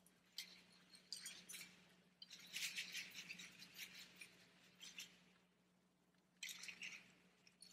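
Faint shaking of a hand-held strand rattle in several short bouts, the longest starting about two seconds in and another near the end.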